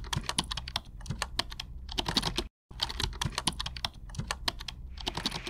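Keyboard typing: rapid, irregular key clicks, broken by a brief silence about two and a half seconds in.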